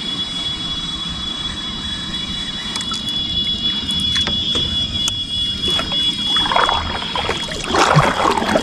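Kayak paddle dipping and splashing in calm water, strongest in the last couple of seconds, with a few light knocks earlier on. A steady high-pitched whine runs underneath and stops about seven seconds in.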